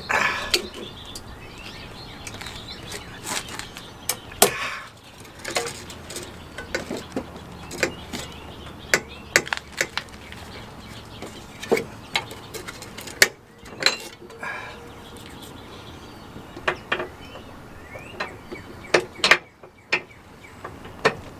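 Ratchet strap being cranked tight, its ratchet clicking in irregular bursts of sharp clicks and knocks as it draws the hitch-mounted bumper into the receiver under heavy tension. Birds chirp faintly in the background.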